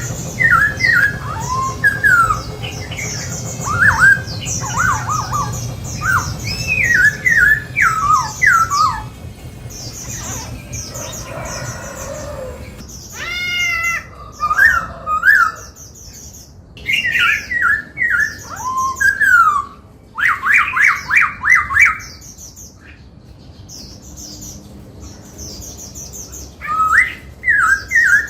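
Black-throated laughingthrush singing: phrases of loud, sliding, mostly falling whistled notes in bursts with short pauses between them, including a fast run of repeated notes about two-thirds of the way through.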